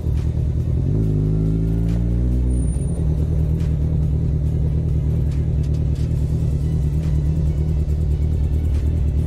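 Kawasaki Z1000 inline-four engine running at low speed, heard from the rider's seat. About a second in the revs climb for a moment, then drop back near three seconds, after which it holds a steady low rumble.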